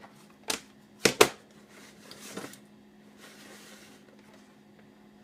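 A computer mouse being clicked and moved about on a desk: a few sharp clicks and knocks in the first second and a half, two of them close together, then softer sliding noise, over a faint steady hum.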